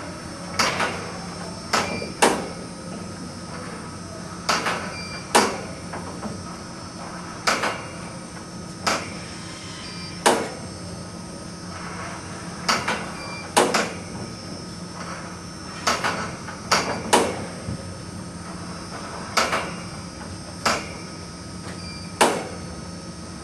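Alvarado MSTX stainless steel full-height turnstile clacking as people pass through one after another: a cluster of sharp metallic clacks every two to three seconds as the rotor is pushed round and self-centres back to its home position.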